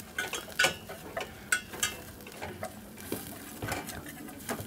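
A metal utensil scraping and clinking irregularly against a stainless saucepan as a flour-and-curry roux is stirred, over a faint sizzle from the pan.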